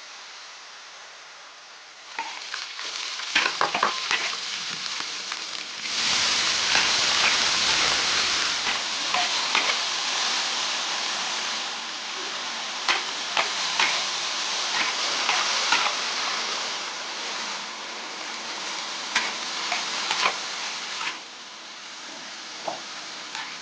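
Food frying in hot oil in a pan, a steady sizzle, with a spoon stirring and clicking against the pan. The sizzle starts about two seconds in, grows louder around six seconds and eases off near the end.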